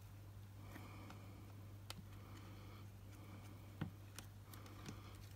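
Faint handling noise in a plastic tub as a leopard gecko's wounded tail is dabbed with cotton wool: a few light ticks and soft scratching over a steady low hum.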